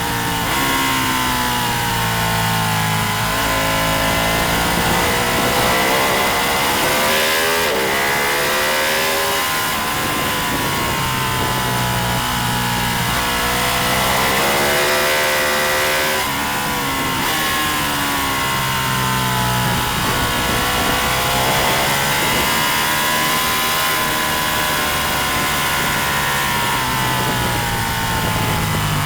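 Racing motorcycle engine at full throttle, its pitch climbing over a few seconds and dropping back again and again as it works through the gears and slows for corners, with steady rushing wind noise.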